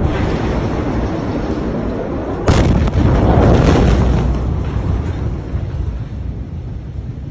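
The blast of the Beirut port explosion, several tons of stored nitrate, reaching the phone: a steady low noise, then a sudden loud boom about two and a half seconds in, followed by a rumble that dies away over the next few seconds.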